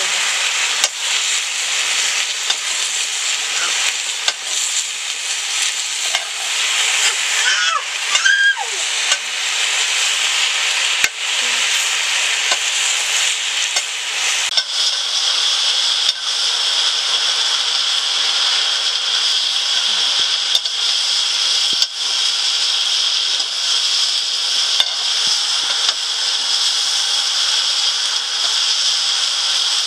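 Greens frying in a pan with a steady sizzle, with a few sharp knocks of stirring. About halfway through the sizzle turns brighter and more even.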